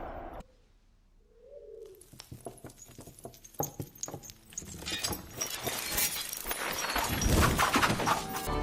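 Birds: a short coo-like call about a second in, followed by a growing flurry of quick clicks and flutters that gets louder and busier in the second half.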